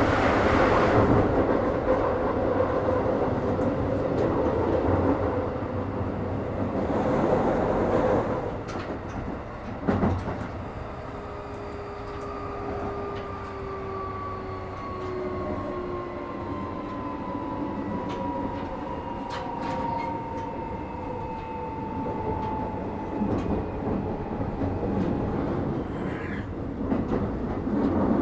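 Cabin running sound of a Keikyu 1000 series (1890 subseries) electric train: loud rolling noise for the first several seconds, a single knock about ten seconds in, then quieter running with an electric whine that slowly falls in pitch as the train slows, before the rolling noise builds again near the end.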